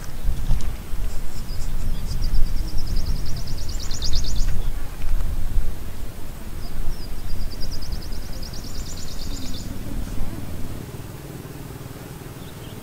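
Gusty low rumble of wind buffeting the microphone, dropping away near the end, with a small bird singing two rapid, high trills a few seconds apart.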